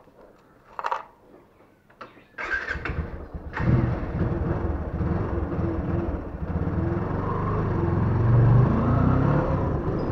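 Motorcycle engine being started: a couple of clicks, a short burst of cranking, then the engine catches about three and a half seconds in and keeps running, rising in pitch with the throttle later on.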